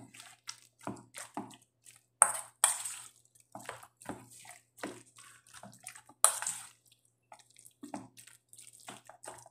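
Metal spoon stirring raw sliced beef in soy sauce marinade in a stainless steel bowl: wet squishing with the spoon clinking and scraping against the bowl, the sharpest clinks about two seconds and six seconds in.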